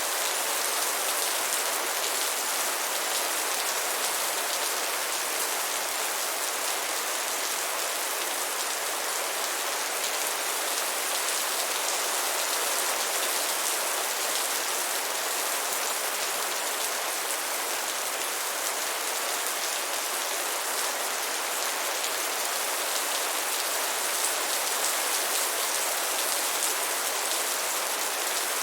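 Steady rain falling, an even, unbroken hiss of many drops with no thunder.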